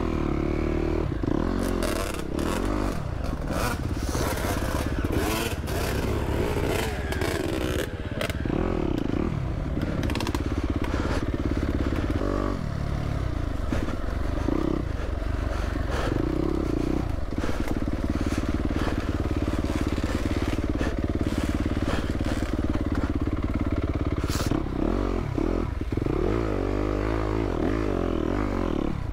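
Yamaha YZ250F dirt bike's single-cylinder four-stroke engine, heard from the rider's helmet while riding, its note rising and falling with the throttle and holding steady in stretches. The bike clatters and knocks over rough trail throughout.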